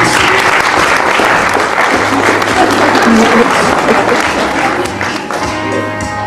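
Audience applauding over background music. The applause swells as the line of performers bows and dies down after about five seconds, while the music carries on.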